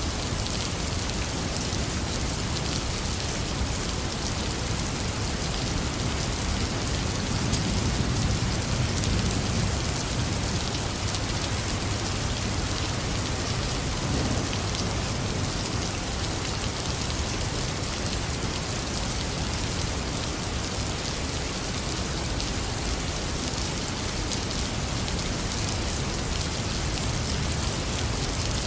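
Heavy rain falling steadily, with a low rumble of thunder swelling and fading about a third of the way through.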